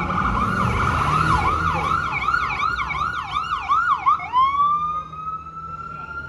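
Ambulance's electronic siren in a fast yelp, about three up-and-down sweeps a second, switching about four seconds in to a slow wail that rises and holds, growing fainter near the end. City traffic rumbles underneath.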